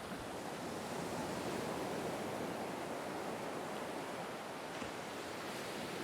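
Ocean surf washing steadily on a beach.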